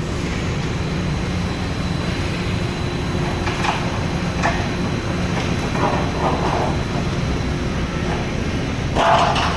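Sawdust drum rotary dryer plant running: a steady heavy mechanical rumble with a faint high whine, and a few short louder clatters, the loudest near the end.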